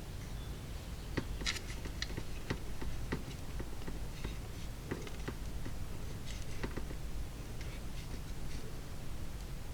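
Scattered light clicks and taps of small tools and parts being handled at a workbench, irregular and a few per second at most, over a low steady hum.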